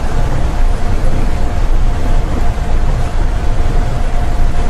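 Seibu 8500 series rubber-tyred automated guideway train running along its guideway, heard from inside the cab: a steady low rumble with a steady whine over it.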